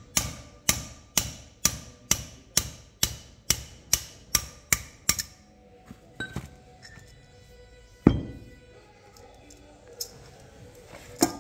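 A steel bar is rammed down against a gear on a splined tractor shaft, giving about a dozen sharp metal-on-metal blows, roughly two a second, as the gear is driven along the shaft. After that come quieter clinks of parts being handled, a single loud clank about eight seconds in and another near the end.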